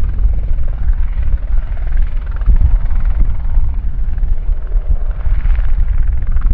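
Eurocopter EC120B Colibri helicopter running, a loud steady rumble of its rotor and single turbine engine.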